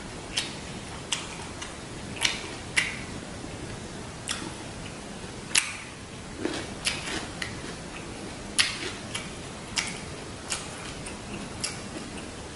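Close-miked eating sounds: wet mouth clicks and lip smacks while chewing, irregular sharp clicks about one or two a second.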